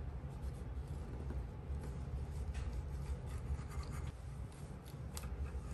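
Chef's knife cutting through a crusty baked cornbread on a wooden cutting board: a quiet, continuous rasping rub with a few faint clicks.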